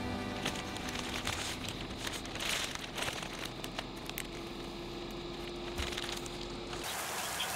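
Plastic zip-top freezer bag crinkling as bread slices are slid into it and the bag is handled and pressed shut, in irregular crackly rustles.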